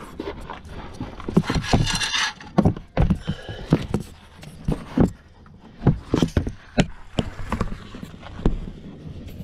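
Irregular knocks, scrapes and gravel crunches as a person shifts around on loose gravel under a car, with the camera being handled and bumped.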